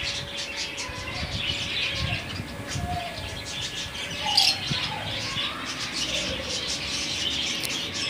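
Budgerigars and lovebirds chirping over the steady hum of a freshly started half-horsepower water pump driving a poultry misting fogger.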